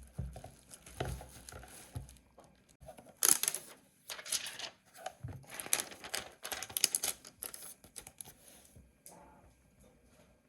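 Packaging being handled as an alarm clock is unboxed: irregular rustling and crinkling, loudest in several bursts a few seconds in, with light knocks and thuds.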